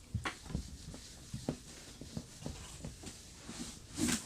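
Scattered soft, irregular taps and knocks, with a louder hiss about four seconds in.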